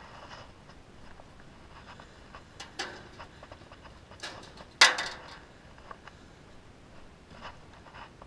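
Wire-mesh crab trap being handled on a wooden pier deck: a few sharp metallic clatters, the loudest about five seconds in, with light rattles and knocks between them.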